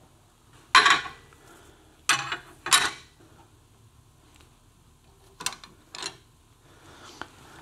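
Steel C-clamps clanking against a steel bending fixture clamped in a bench vise as they are fitted and tightened: three loud metallic clanks within about two seconds, then two lighter clicks half a second apart.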